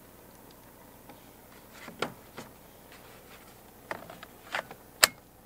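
Scattered plastic clicks and knocks from handling a Ryobi 40-volt cordless chainsaw and its battery pack, with a sharp snap near the end.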